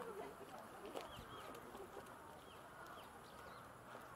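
Small birds give a few short, high chirps over a faint murmur of people.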